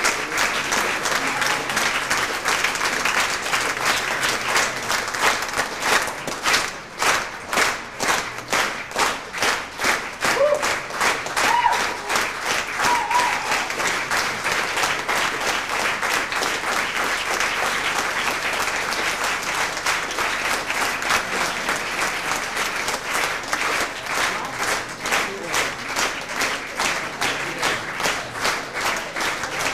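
Audience applauding, with the clapping falling into rhythmic unison for a stretch in the middle, about three claps a second.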